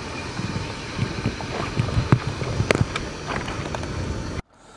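Wind buffeting the microphone, with scattered sharp clicks and knocks. It cuts off suddenly near the end.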